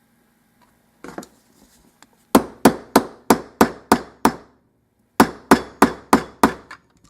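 Channel-lock pliers used as a hammer, striking a euro lock cylinder to drive out a stuck roll pin: one light tap, then seven sharp ringing blows about three a second, a short pause, and six more. The pin does not want to come out.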